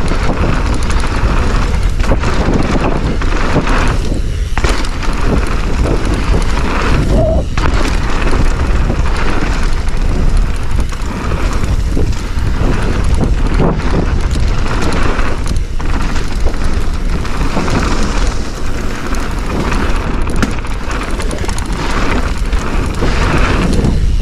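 Wind buffeting the microphone and mountain-bike tyres rolling on a dirt trail at speed, a steady loud rush, with scattered knocks from the bike going over bumps.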